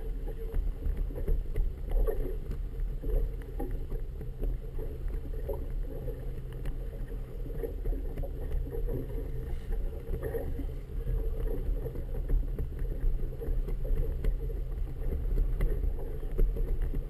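Wind rumbling and buffeting on the microphone of a boat-mounted GoPro Hero 2, with choppy water washing against the hull. Steady and uneven throughout, with no distinct events.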